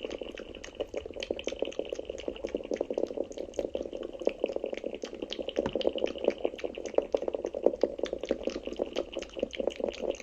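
ASMR wet mouth sounds made very fast: a dense, continuous stream of short smacks and clicks, many each second.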